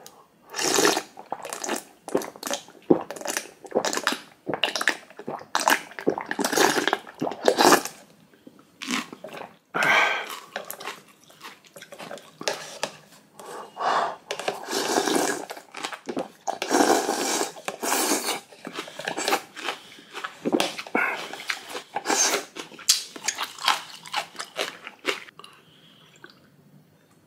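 Close-miked mukbang eating: cold noodles slurped and food chewed in a run of irregular wet bursts, some short and some drawn out over a second or so.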